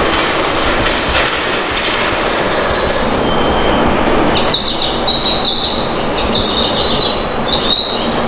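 Seibu Railway commuter train heard from inside the carriage: a steady running rumble of wheels on rail, with high-pitched wavering wheel squeals from about halfway through as the train draws into a station.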